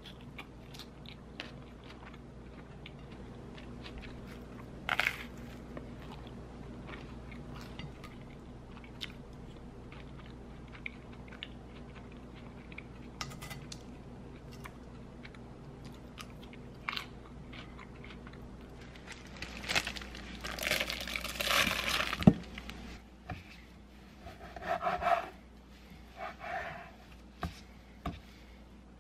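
Someone eating a salad-and-toast plate: chewing and crunching, with scattered sharp clicks from a fork on a ceramic plate. A louder stretch of crunching comes about two-thirds of the way through, followed by a few shorter crunches.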